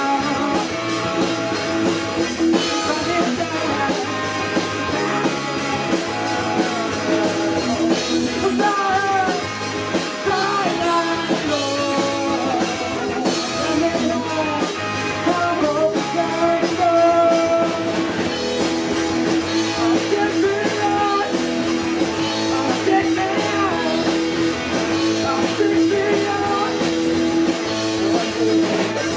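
Live rock band playing a song, with guitar and drum kit and a wavering melody line over a steady held note.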